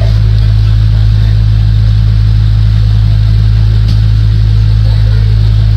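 Loud steady low electrical hum at mains frequency with its overtones, unchanging, with a single sharp click about four seconds in.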